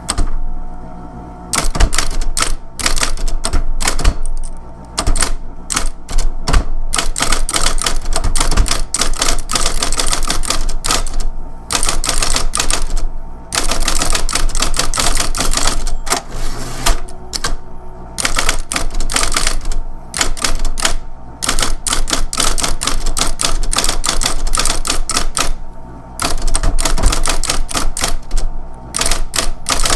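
Electric typewriter being typed on: runs of rapid key strikes clacking against the platen, broken by short pauses, over the machine's steady running hum.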